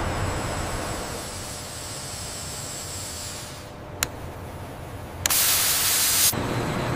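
Steady industrial hiss, then a single sharp tap of a gloved finger on a pressure gauge's glass about four seconds in. About a second later comes a loud, even burst of hissing, like a pressure release, that lasts about a second and stops abruptly.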